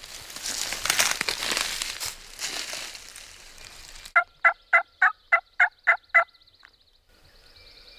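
Rustling and crunching through dry leaves for about three seconds. Then a series of eight short, evenly spaced wild turkey yelps comes at about three or four a second.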